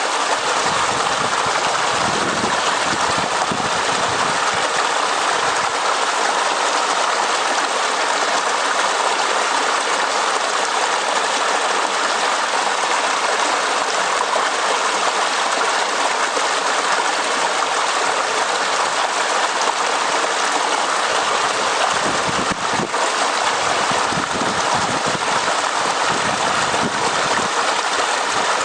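Highland stream running over rocks, a steady rushing babble of water with no let-up.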